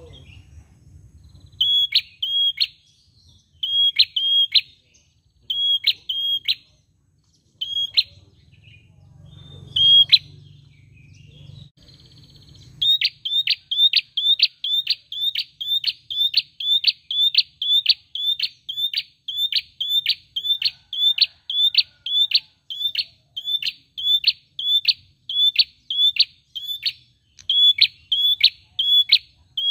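Caged tailorbird (prenjak) calling with sharp, high repeated notes. At first they come in pairs every couple of seconds. About halfway through they turn into a fast, loud, unbroken run of two or three notes a second.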